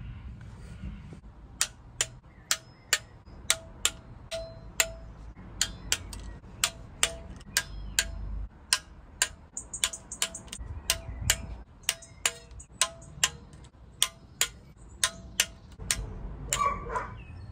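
Ratchet torque wrench clicking, about two sharp clicks a second with a short metallic ring, as the sump pan bolts are run down in sequence to the first-stage torque of 6 Nm.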